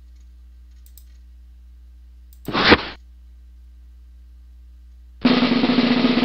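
Logo intro sound effects: a short, loud noisy hit about two and a half seconds in, then a longer noisy burst with a steady low tone in it starting about five seconds in, over a steady low hum.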